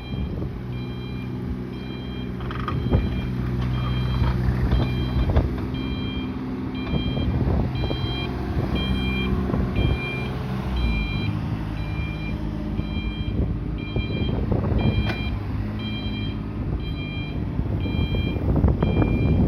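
Excavator travel alarm beeping steadily about once a second, with the digger's engine running underneath and a few clunks of the machine working.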